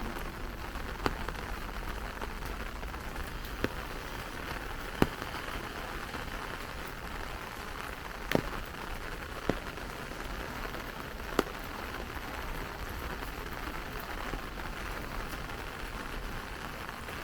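Light rain pattering steadily on an umbrella, with occasional louder single drop taps on the canopy.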